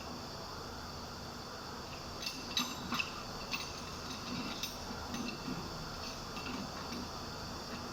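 A handful of light metallic clicks and clinks, metal parts being handled, a few seconds in, over a steady high chirring of crickets.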